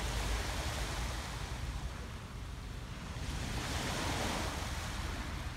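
Small waves breaking and washing up a sandy beach, the surf swelling at the start and again about three and a half seconds in. Wind rumbles on the microphone underneath.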